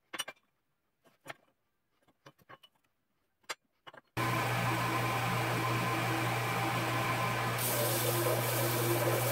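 A few scattered light clicks and knocks, then about four seconds in a power tool starts up abruptly and runs steadily with a strong low hum and a hiss that turns brighter near the end.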